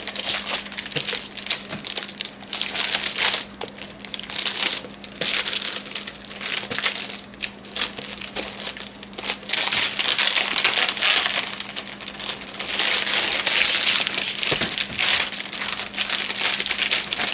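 Plastic packaging crinkling and rustling in irregular bursts as a package is handled and opened.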